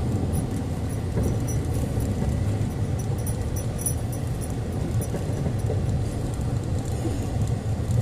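Car driving, heard from inside the cabin: a steady low rumble of engine and road noise, with faint small ticks and rattles over it.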